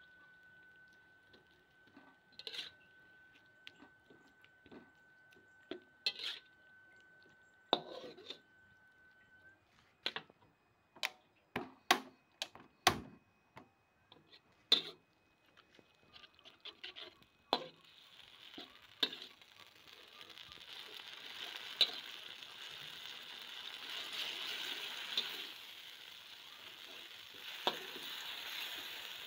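Metal spatula scraping and knocking against a wok while stir-frying sardines in chilli sambal, with sharp clicks scattered through the first two-thirds. Frying sizzle grows louder from about two-thirds of the way in, and a faint steady whine sounds for the first third.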